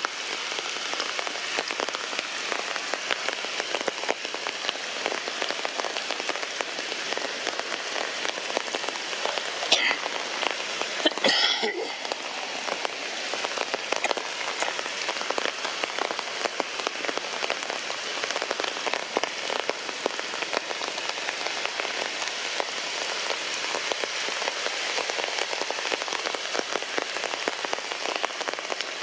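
Heavy rain falling steadily. A couple of brief, louder sounds stand out about a third of the way in.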